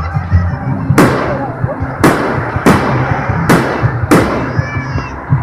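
Fireworks exploding overhead: five sharp bangs, roughly a second apart, each trailing off in an echoing rumble.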